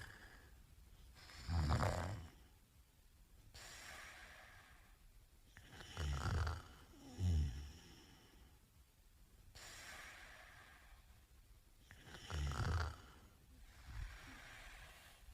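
A man snoring in his sleep: a snore every few seconds, two of them close together near the middle, with fainter breaths in between.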